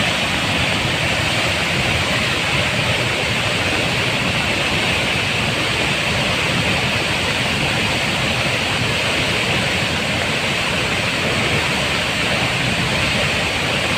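Soochipara waterfall in full flow after heavy rain: a steady, unbroken rush of falling water.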